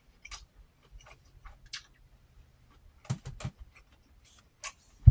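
Close-miked eating sounds: scattered small mouth clicks and smacks of chewing, a busier run of them about three seconds in, and a sharp thump at the very end.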